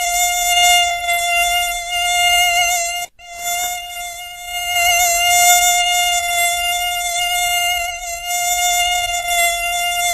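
Mosquito wingbeat whine at close range: a steady high-pitched buzz with many overtones that wavers slightly in pitch and loudness. It cuts out for a split second about three seconds in.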